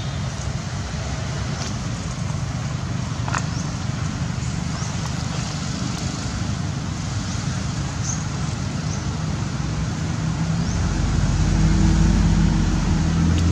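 Steady road traffic noise, with a motor vehicle engine rumbling louder near the end. A few faint, short high chirps sound through it.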